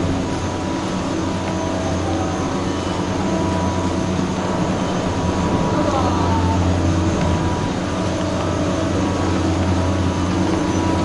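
Steady hum of a Nippon Cable detachable chairlift's station machinery: the drive and the rows of rubber tyres pushing the hooded pair chairs through the terminal, with a low steady drone and a faint whine above it.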